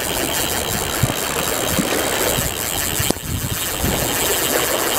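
Wind buffeting the microphone: a steady rushing noise, with one sharp click about three seconds in.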